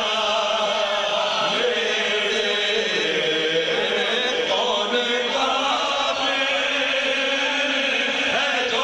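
Men's voices chanting a Punjabi devotional kalam in a steady drone of long held notes that run on without a break.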